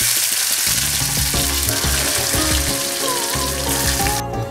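Chopped tomatoes sizzling loudly as they hit hot oil in an iron wok. The sizzle stops abruptly near the end.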